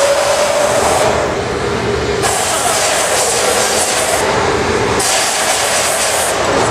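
Loud, steady rush of gas flames: a hand-held torch played over hot glass in a sand-casting mould, with the furnace burners of the glass studio running underneath. The hiss swells and fades a few times, over a faint wavering hum.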